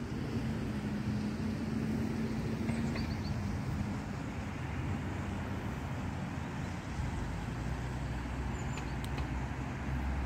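Outdoor ambience dominated by a steady low rumble of road traffic, with a low hum over the first few seconds and a few short high chirps about three seconds in and again near the end.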